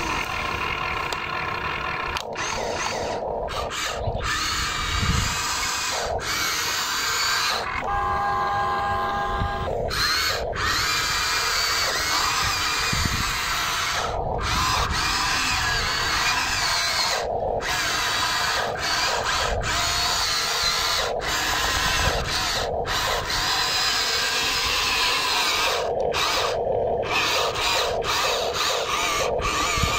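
Electric gear motors of a Huina RC excavator whining as it swings, moves its arm and drives on its tracks. The whine shifts in pitch and cuts in and out many times.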